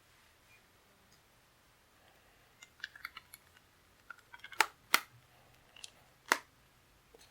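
Phone being pushed into a new phone case: a scatter of small clicks and scrapes, then three sharp snaps in the second half as it clicks into place.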